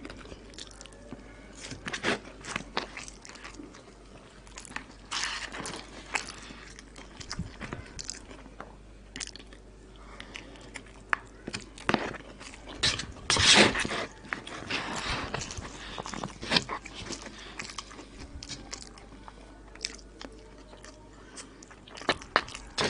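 Close-miked chewing and mouth sounds of a person eating a mouthful of koshari, with irregular bites and chews and the loudest cluster a little past the middle.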